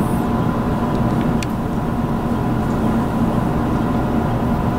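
Steady hum of a JR Kyushu 787 series electric train's onboard equipment while it stands at the platform, heard inside the passenger cabin, with a couple of faint ticks.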